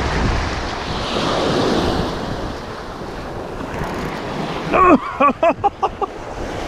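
Small waves breaking and washing over a rocky shore, with wind buffeting the microphone. About five seconds in come a few short voice-like pitched sounds.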